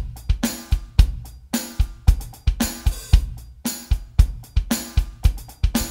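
Roland TD-30 electronic drum kit playing a groove of kick, snare and hi-hat, about four strikes a second. A tambourine sound is layered onto the hi-hat's edge hits.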